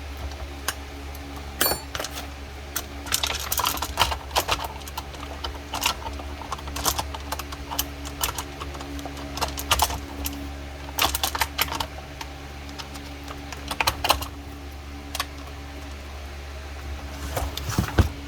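Irregular light metallic clicks and rattles of a chainsaw chain and guide bar being handled and fitted, over a steady low hum.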